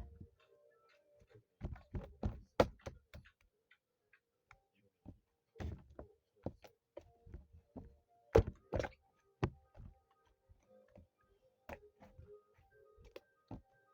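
Irregular knocks and thumps, the loudest about two and a half and eight and a half seconds in, over faint background music.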